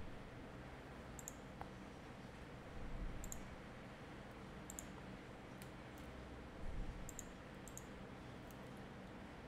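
Faint computer mouse clicks, about nine scattered single or quick paired clicks, like a button pressed and released. Two soft low thumps fall in between.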